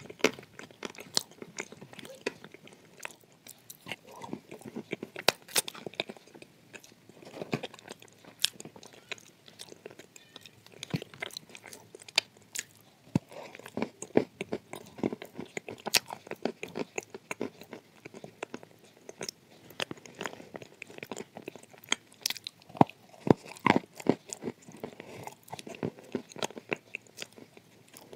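Biting and chewing a dry chunk of edible clay close to the microphone: many sharp crunches and crumbling crackles at an irregular pace.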